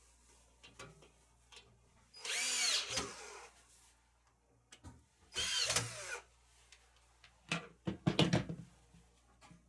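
14.4 V cordless drill/driver running screws on a metal TV wall-mount bracket in two bursts of about a second each, the motor pitch rising and falling with the trigger. A few sharp knocks follow near the end.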